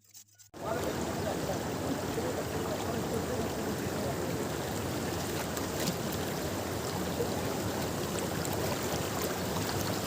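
Green papaya being grated: a continuous rough scraping that starts suddenly about half a second in.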